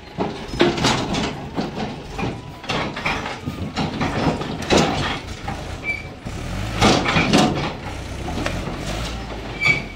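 Timber logs sliding and tumbling off a hydraulically tipped tractor trolley, landing with a string of irregular heavy thuds and knocks on the log pile, over the low running of the tractor engine. The loudest thuds come about a second in, around five seconds in and about seven seconds in.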